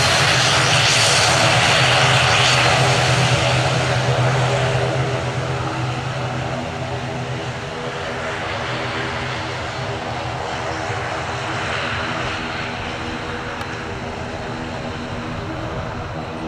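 Boeing 777-300 twin jet engines running as the airliner lands: a loud steady engine roar with whining tones that fades after about four seconds and then carries on more quietly.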